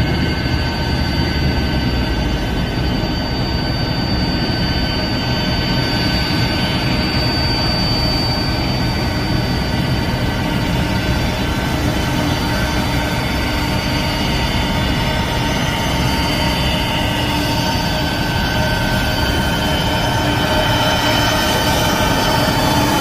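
Boeing 747-8F freighter's GEnx turbofan jet engines running, a loud steady rush with several high steady whining tones over it.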